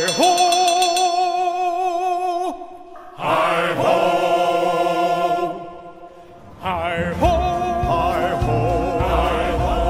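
Sung music: voices hold long notes with vibrato in three phrases, broken by two short pauses. A low rumble comes in under the last phrase.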